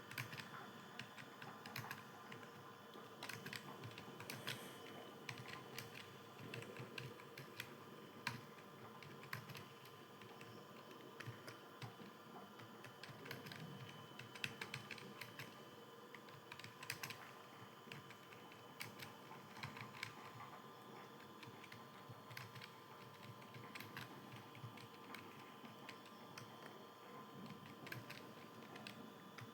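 Computer keyboard keys clicking in continuous, irregular typing, faint, over a steady low hum.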